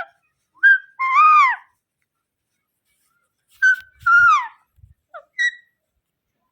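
Indian ringneck parrot calling: two loud calls that rise and fall in pitch, each preceded by a short note, then a few short chirps near the end.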